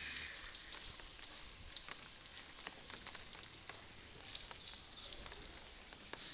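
Steady rain falling on a wet concrete yard: an even hiss dotted with many sharp drop ticks close by.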